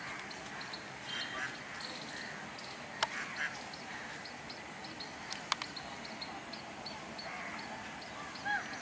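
Quiet outdoor ambience of birds calling, crows cawing among them, over a steady high hiss, with two sharp clicks about 3 and 5.5 seconds in.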